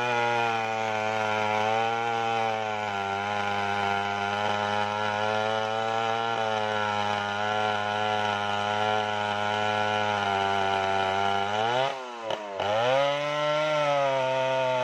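Stihl 070 two-stroke chainsaw running at full throttle while bucking a large sengon log, its engine note wavering slightly as the chain bites. About twelve seconds in the engine speed dips sharply for about a second, then climbs back up.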